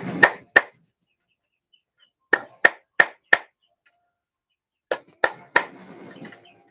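Hammer tapping a thin dimpled metal sheet laid on a wooden board. Sharp single taps come in short runs of two to four, about three a second, with pauses between runs.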